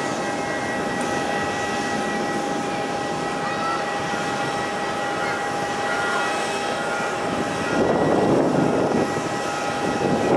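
Boeing 737-800's CFM56 turbofan engines at takeoff power: a steady jet noise with two held whining tones. It grows louder and rougher about eight seconds in.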